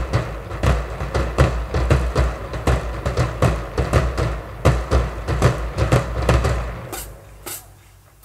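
Marching drumline of snares, tenors and bass drums playing a fast, driving cadence, with several strikes a second over booming low drum tones. The cadence stops about seven seconds in, leaving a couple of sharp high hits near the end.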